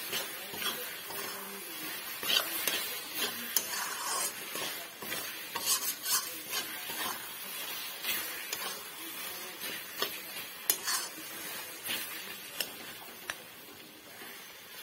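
Metal spatula scraping and clinking against a metal kadai while stirring a thick jujube (borai) pickle that sizzles as it cooks. The scrapes and clinks come irregularly and thin out a little near the end.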